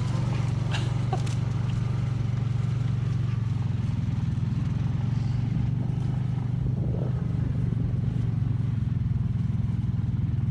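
Four-wheeler (ATV) engine running at a steady, even pitch, with no revving.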